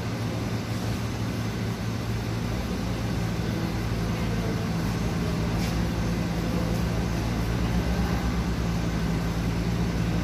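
A steady low mechanical hum with a constant rushing noise over it, unchanging throughout.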